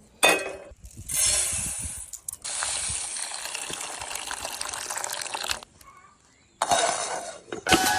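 Water running or being poured, in about four separate spells with short breaks, the longest lasting about three seconds.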